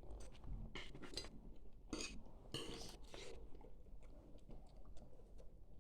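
Faint, scattered clinks and taps of cutlery and dishes at a meal table: a handful of short, separate sounds spread through the few seconds.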